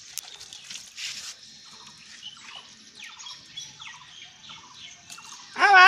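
Water splashing briefly about a second in as it is poured from a steel bowl over a toddler's head, with faint bird chirping behind it. Near the end a loud, high, wavering cry starts: the toddler crying.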